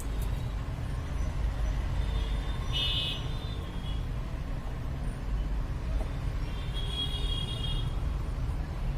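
Steady low rumble of road traffic with two brief high-pitched vehicle horn toots, about three and seven seconds in.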